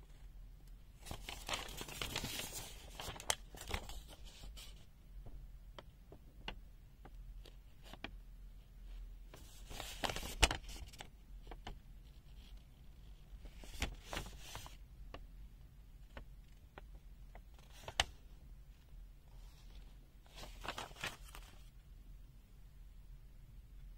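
Folded paper instruction leaflet rustling and crinkling as it is handled and unfolded, in several bursts of a few seconds each, with a few light clicks between.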